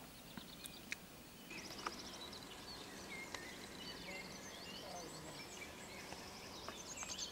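Songbirds singing in the surrounding trees: repeated high trills and chirps from several birds over a faint steady background hum, with a few soft clicks.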